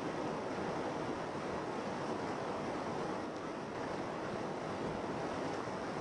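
Turbulent river rapids rushing over rocks: a steady, even wash of churning water.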